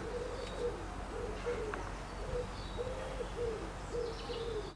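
Low hooting calls repeated about twice a second, with a few faint high bird chirps.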